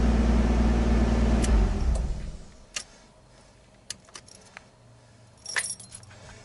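R32 Skyline GTST's engine running steadily, then switched off about two seconds in and winding down. Faint ticks follow, then a short jangle of keys near the end.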